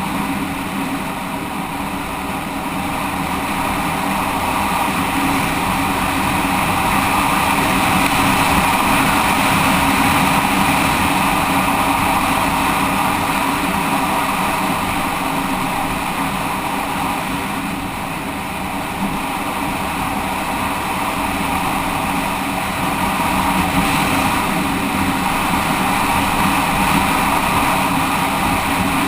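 Single-cylinder dual-sport motorcycle engine running while riding along, mixed with a steady rush of road and wind noise. The sound swells and eases gradually as the speed changes.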